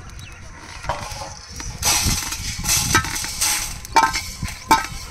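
Perforated metal skimmer scraping dry-roasted spices (coriander seeds, peppercorns, dried red chillies, curry leaves) out of an aluminium pot onto a steel plate, with scraping and rattling and two sharp metal clinks near the end.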